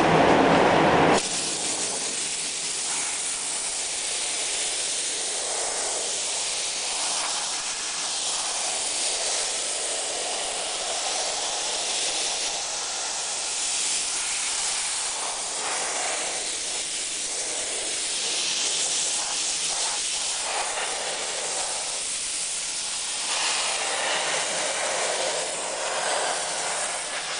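Spray-chrome spray gun hissing steadily as the panel is sprayed, after a louder, fuller spray cuts off suddenly about a second in.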